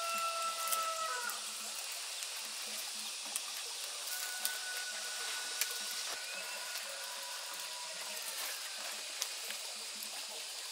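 The tail of a rooster's crow, a long held note that ends about a second in. After it comes steady rural background hiss with faint, distant calls and a few light clicks.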